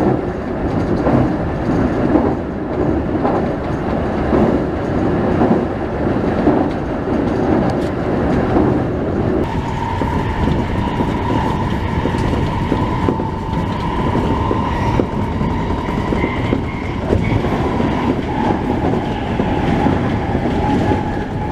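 Electric commuter train of the Tokyo Metro Tozai Line running on its rails, wheels clicking regularly over the rail joints under a steady rumble. About halfway through, a steady whine from the electric traction motors joins in and holds.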